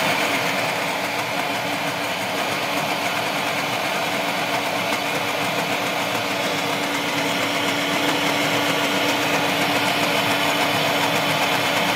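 Bajaj 1000 W mixer grinder running steadily at full speed, its small steel jar blending coffee, sugar and water into a paste: a loud, even whir over a steady motor hum.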